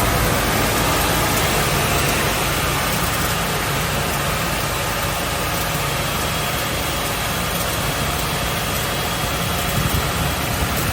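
Rojek BS 1100 wide-belt sander running with no workpiece: its two sanding heads, driven by a 15 kW motor, give a steady hum under an even spread of machine noise.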